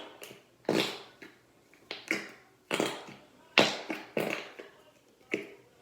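Slime being squeezed and worked by hand, giving a string of sharp squishing pops, about two a second.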